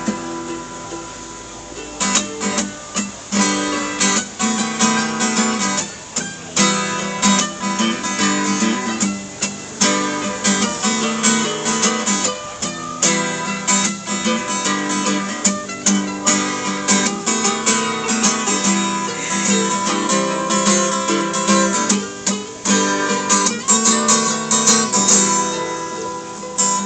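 String band playing an instrumental passage with no singing, led by rapidly strummed and picked acoustic guitar.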